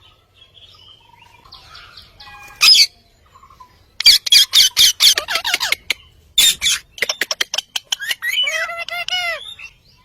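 Green ringneck parakeets squawking: one shrill call, then a fast run of sharp repeated squawks from about four seconds in, ending in a stretch of warbling chatter near the end.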